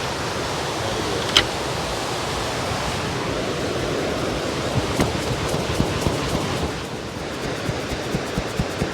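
Steady rushing of the Parvati River, a mountain river. There is a sharp click a little over a second in, and near the end a run of light, even taps, about three a second.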